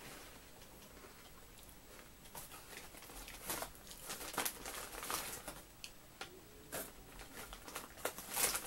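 Faint crunching and crinkling of someone eating potato crisps from the packet: irregular sharp crackles, a few a second, starting about two seconds in.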